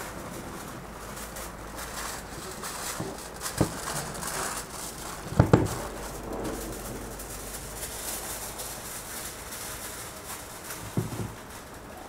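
Aluminium foil being spread and smoothed by hand on a tray, crinkling, with a few sharp knocks on the table, the loudest a quick double knock about five and a half seconds in.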